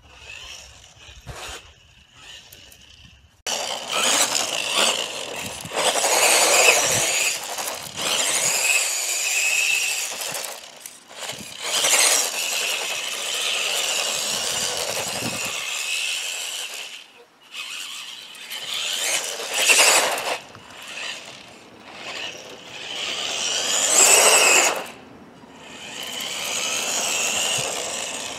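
Electric RC car running: a high motor whine with tyre and gravel noise, swelling and falling away several times as it speeds up and slows.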